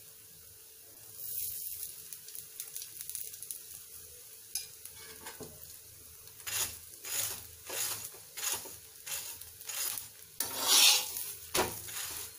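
Oil sizzling under an aloo paratha on a hot tawa. From about six seconds in, a spatula scrapes and presses on the pan in short strokes about every half second, loudest near the end.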